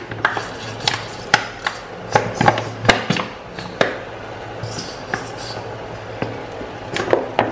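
Irregular sharp clicks and knocks of a plastic bottle of red palm oil being squeezed and slapped upside down over a pot, about a dozen spread unevenly, over a low steady hum.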